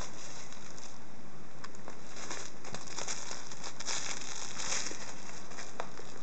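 A pet's crinkle toy rustling like crumpled paper as the animal plays with it, in bursts that are loudest around the middle, with scattered small clicks.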